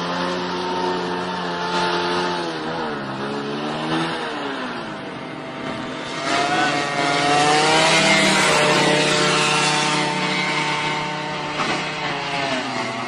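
A motor vehicle's engine running and revving, its pitch dropping and climbing again several times. It is loudest in the middle.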